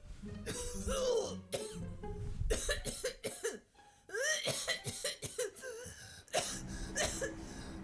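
A person coughing repeatedly and clearing their throat in short fits, with a brief pause a little past halfway.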